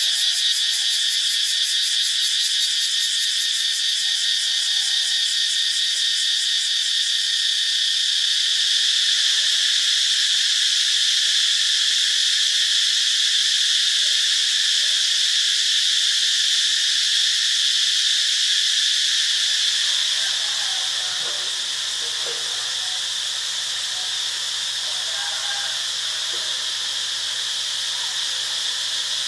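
Cicadas singing: a continuous shrill buzzing drone, with a fast even pulsing in its highest part for the first several seconds. About two-thirds of the way through it drops slightly in level and a faint low hum comes in beneath it.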